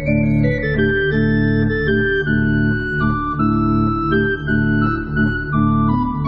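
Church organ playing full chords over a deep sustained bass, the chords moving step by step and changing every half second or so.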